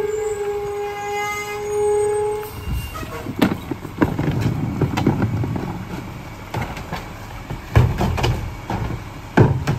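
McNeilus rear-loader garbage truck's packer running with a steady high-pitched squeal that stops about two and a half seconds in. After it come the truck's idling engine and a string of thuds and clatter as trash and a wheeled cart are dumped into the hopper, with the loudest bangs near the end.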